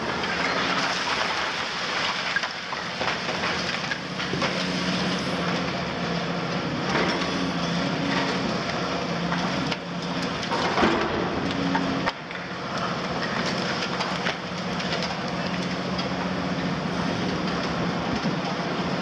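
Cat 352F demolition excavator's Cat C13 diesel running steadily under hydraulic load, while its long-front boom crushes concrete from the upper floors of a building. There is continuous crunching and crackling of breaking concrete and debris clattering down.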